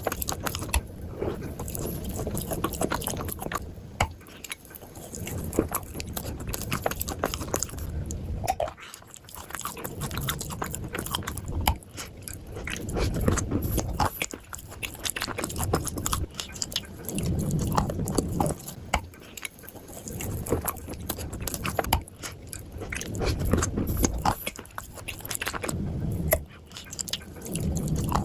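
Crunching and chewing of dry clay: repeated bites with sharp crackles, and chewing swelling and fading every couple of seconds.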